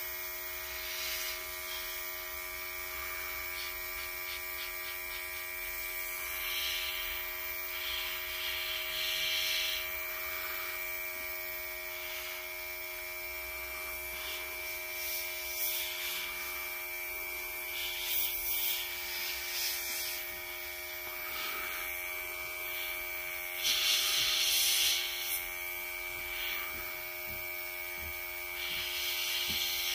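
Small airbrush compressor humming steadily as a gravity-feed airbrush sprays paint in short hissing bursts of air, the longest and loudest about three quarters of the way through.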